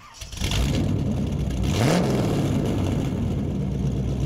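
An engine-like hum starts about half a second in, rises in pitch briefly near two seconds in, then runs steadily.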